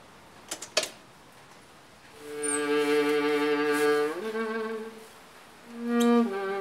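Two short clicks at a door handle, then bowed-string film score (violin and cello) playing long held notes that step to new pitches a couple of times.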